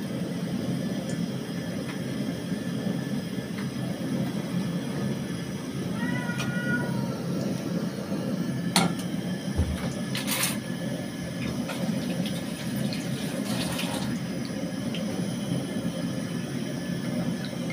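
Cooking oil swirled in a nonstick pan that is lifted and set back on a gas stove, with a couple of sharp knocks of the pan against the burner around the middle. Behind it runs a steady low rushing noise.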